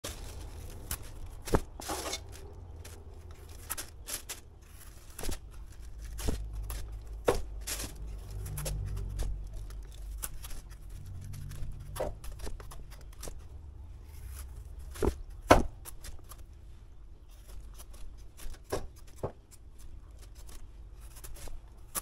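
Green papaya being peeled and shaved with a small orange-handled knife: irregular scraping strokes and sharp clicks of the blade. A low rumble runs for several seconds in the middle.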